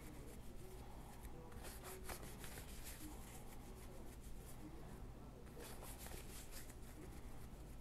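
Tarot deck being shuffled hand to hand: soft flicking and rustling of cards in two spells, about two seconds in and again near six seconds, over a faint low hum.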